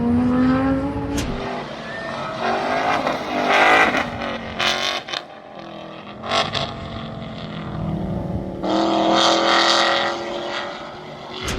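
Sports cars passing at speed on a race track, engines revving as they go by one after another. The loudest passes come right at the start, with a rising engine note, and again about nine to ten seconds in.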